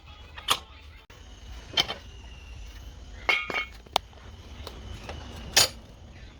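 Scattered metallic clinks and knocks of tools and suspension parts being handled, about five in all, one ringing briefly about three seconds in.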